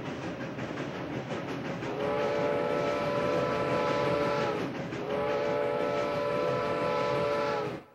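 Steam train running, its rumble building, with two long blasts of its whistle, each sounding several notes at once. The sound cuts off suddenly near the end.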